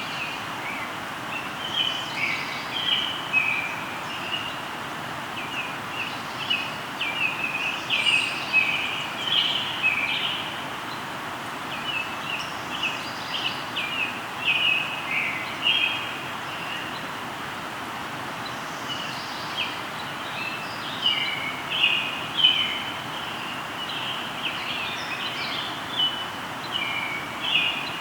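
Songbirds singing in many short, high chirping phrases over the steady rush of a flowing river. The birdsong comes in clusters, with a brief lull about midway.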